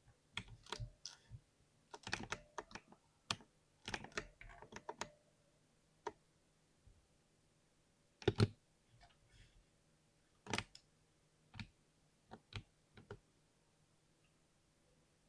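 Typing on a compact 60% keyboard: quick runs of keystrokes for the first five seconds, then single key presses a second or two apart, stopping about 13 seconds in.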